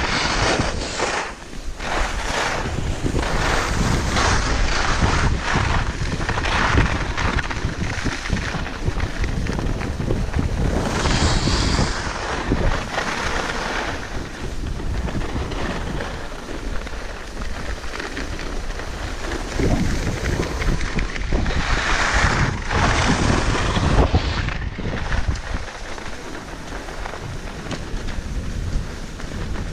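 Wind buffeting an action camera's microphone during a downhill ski run, a steady low rumble, with skis hissing and scraping over packed snow. The ski hiss swells louder about halfway through and again near three-quarters of the way.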